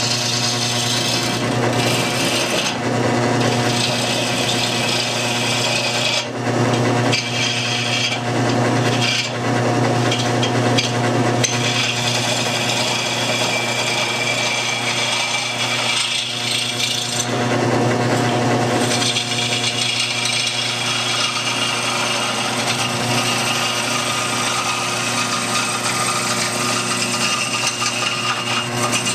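Homemade wood lathe running with a steady motor hum while a turning tool cuts the outside of a spinning wooden bowl, giving a rough, scraping hiss. The cutting noise breaks off briefly several times as the tool is eased off and set back in.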